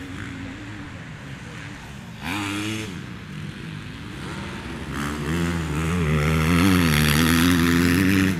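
Motocross bike engine revving on the track: a short rev about two seconds in, then from about five seconds in a bike gets louder, its engine pitch rising and falling with the throttle, and the sound cuts off suddenly at the end.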